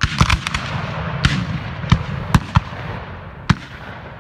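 Black-powder musket fire: a ragged burst of several shots at once, then scattered single shots over the next three seconds.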